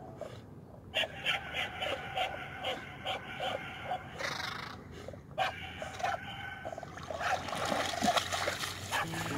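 English pointer swimming with a dummy duck in its mouth, breathing and paddling in a steady rhythm of about three strokes a second. Near the end it splashes through shallow water as it wades ashore.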